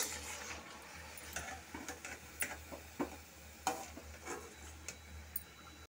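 Potato vadas deep-frying in oil in a steel kadai: a faint sizzle with scattered sharp clicks as a perforated steel ladle stirs and turns them.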